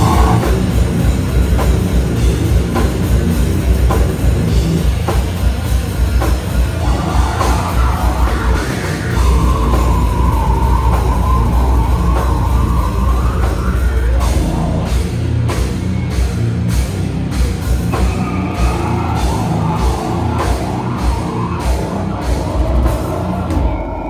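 Slam death metal band playing live: heavy distorted guitars and bass over a pounding drum kit, kicking in suddenly at the start. In the second half the drums add sharp hits about twice a second.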